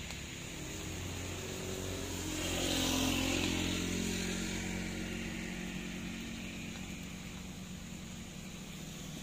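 A motor vehicle driving past, its engine and tyre noise swelling to loudest about three seconds in and then fading away.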